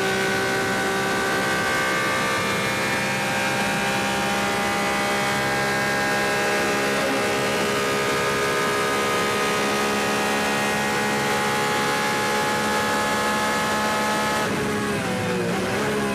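Porsche 911 RSR race car's flat-six engine heard onboard, running at high revs with a long, near-steady note under full throttle. Near the end the pitch drops and jumps back in quick steps, like a series of downshifts with throttle blips under braking.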